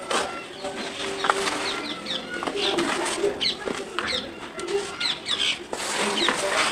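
Hands crumbling and raking through dry red dirt in a tub, a continuous gritty rustling and crunching of soil and small clods. Birds chirp briefly in the background from about a third of the way in.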